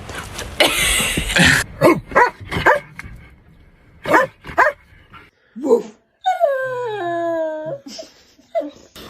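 A dog barking and yipping in a string of short sharp calls, with one longer call falling in pitch about two-thirds of the way through.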